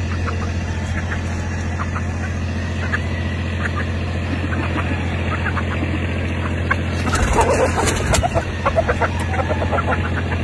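Chickens clucking in short scattered calls, with a louder flurry about seven seconds in, over a steady low hum.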